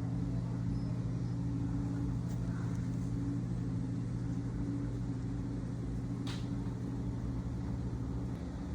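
Steady low mechanical hum with a few constant tones, and a single sharp click about six seconds in.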